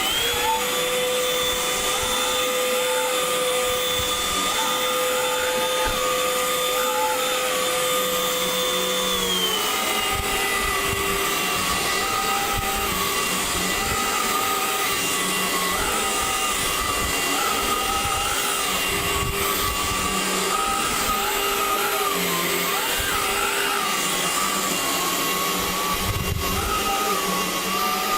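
Craftsman V20 cordless stick vacuum running with a steady high whine over a rushing hiss. Its pitch steps down once, about nine seconds in, and it then runs steadily at the lower pitch.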